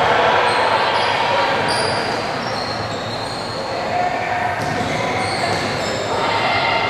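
Game noise in a large indoor hall: many spectators' voices talking and calling out, with short high squeaks over the chatter.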